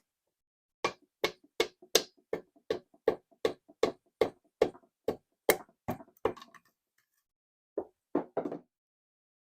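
Light, evenly spaced knocks, about three a second for some five seconds, then a few more near the end: parts of a Briggs and Stratton small engine being tapped into place during reassembly.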